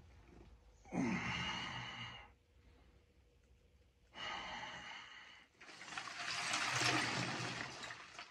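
A man sighing and breathing out heavily while sitting in an ice bath: a short voiced sigh about a second in, then two long noisy exhalations, the last one, about two and a half seconds long, the loudest.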